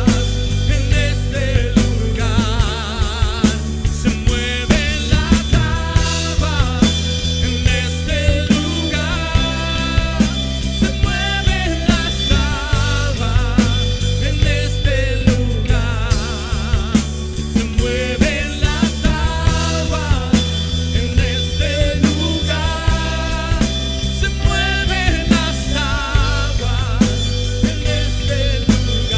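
Live rock band playing: drum kit with regular beats under bass, electric guitars and keyboards, and a lead melody line with vibrato above them.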